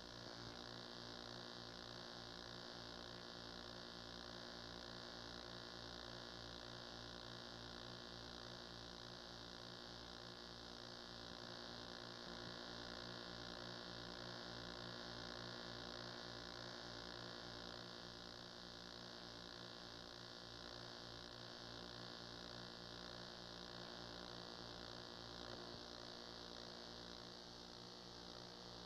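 Faint steady electrical hum with a high hiss over it and no other sound: mains hum and tape hiss on an old videotape transfer.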